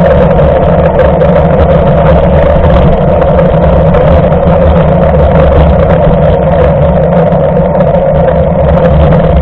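Steady, loud rumble of wind and tyre noise on a bike-mounted camera as a mountain bike rolls along a wet road, with a constant hum over the low roar.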